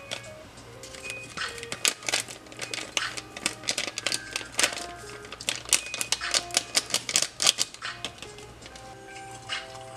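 Plastic sachet crinkling and crackling in rapid sharp clicks as instant coffee powder is shaken from it into a glass mug. Soft background music plays underneath.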